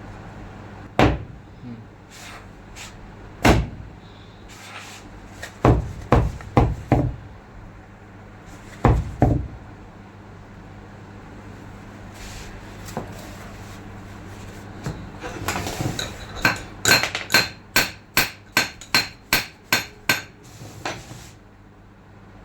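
Hammer striking the steel parts of a forklift's steering hydraulic cylinder to seat its lock ring. A few scattered blows come first, then a quick run of about ten ringing metallic taps near the end.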